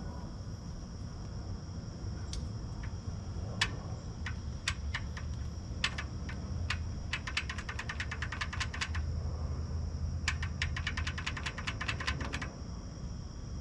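Ratchet wrench clicking: a few single clicks, then two quick runs of rapid, even clicks about halfway through and again near the end, over a low steady hum.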